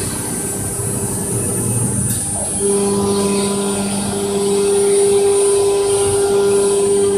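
CNC router with a linear automatic tool changer running, its spindle giving a steady whine that sets in strongly about two and a half seconds in and holds.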